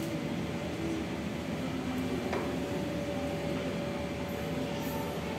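Steady room noise: an even hum with a thin steady whine running through it, and one light click a little over two seconds in.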